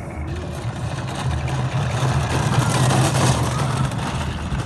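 A ride-on toy kart's plastic wheels rolling fast down a paved hill: a steady low rumble with wind noise on the microphone, loudest about halfway through.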